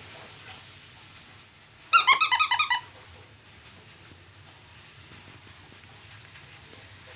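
Squeaky pet toy squeezed in quick succession: about eight rapid high squeaks in under a second, about two seconds in.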